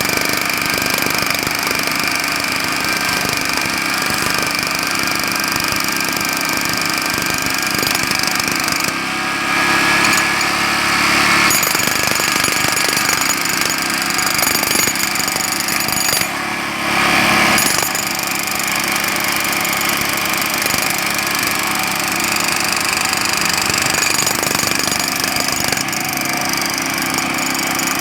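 Jackhammer hammering continuously in rapid strokes over a steady engine hum. It grows louder and sharper for a couple of seconds about ten seconds in, and again around seventeen seconds.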